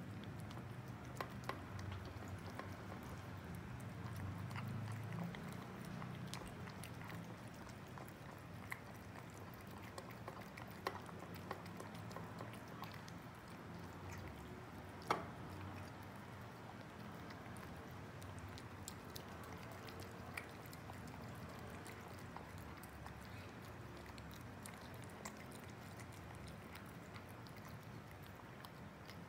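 Two cats eating wet cat food from feeder bowls: wet chewing, lapping and smacking in small irregular clicks, with one louder click about halfway through.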